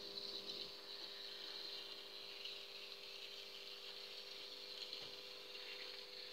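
Tiny electric drive motor and gearing of an N-scale Faller Car System model truck running as it drives: a faint, steady high-pitched whir over a steady low hum.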